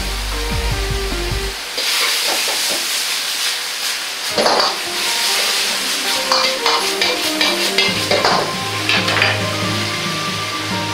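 Green beans stir-frying in a black iron wok over a high gas flame: a loud sizzle, with a metal ladle scraping and knocking against the wok several times. The sizzle flares up about two seconds in as a starch-and-water slurry is stirred into the hot pan.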